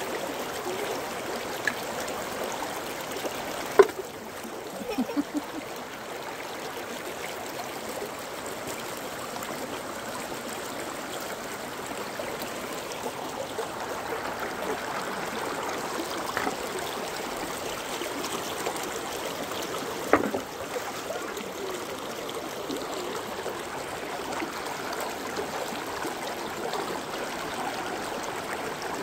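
Shallow creek running over boulders and stones, a steady rush of water. Two short sharp clicks stand out, about four seconds in and again about twenty seconds in.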